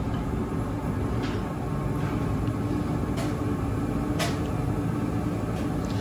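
Tempstar gas-fired furnace running its ignition sequence: the draft inducer motor hums steadily, with a few faint clicks.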